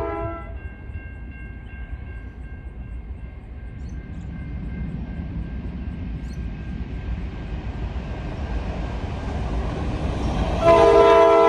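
Diesel locomotive horn chord cutting off just after the start, then the low engine rumble of SSR locomotives P14 and P16 building as the train approaches. About ten and a half seconds in, the horn sounds again, loud and held.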